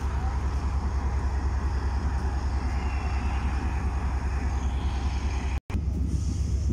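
Diesel locomotive engine idling at a station platform: a steady, low, evenly pulsing throb. It cuts out for an instant about five and a half seconds in, then carries on.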